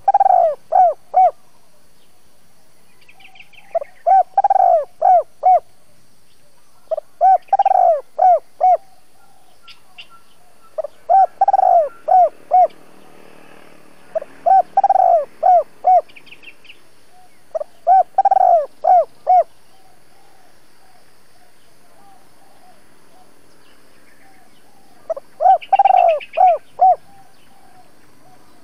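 Spotted dove cooing its repeated phrase seven times, each a longer note followed by three short ones, every three to four seconds, with a longer pause before the last. Faint chirps of other small birds come between the phrases.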